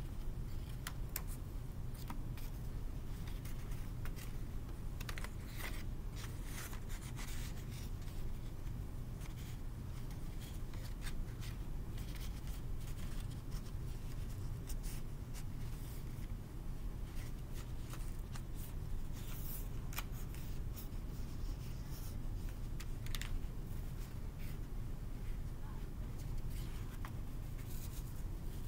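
A sheet of paper rustling and crackling as hands fold and bend a cut-out paper template. The crackles come in short, irregular bursts over a steady low hum.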